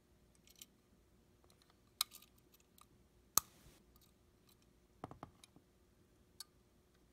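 Sharp clicks from a small hinged metal pocket-watch-style case being handled: single clicks about two seconds and three and a half seconds in (the loudest), a quick cluster of clicks around five seconds, and one more near the end.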